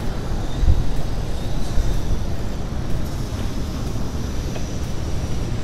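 Steady low rumble of vehicle and road noise on a town street, with no distinct events.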